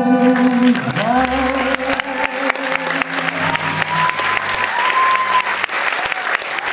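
Audience applauding with dense, steady clapping, while the sung number's final held chord dies away in the first two seconds or so. A few long cheering calls rise over the clapping in the middle.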